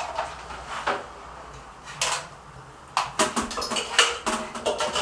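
A string of irregular clicks and knocks, handling noise as an aquarium canister filter's power plug and cord are plugged in.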